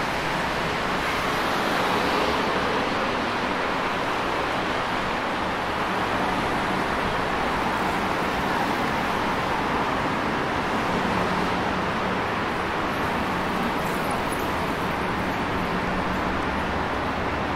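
Steady road traffic on a busy city street, cars passing continuously in an unbroken wash of tyre and engine noise. A low steady hum joins about eleven seconds in.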